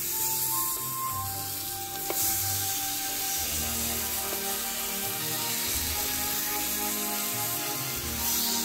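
Seasoned pork chops sizzling in a hot aluminium frying pan as they are laid in one after another with metal tongs; the sizzle gets louder about two seconds in after a short sharp sound. Background music plays underneath.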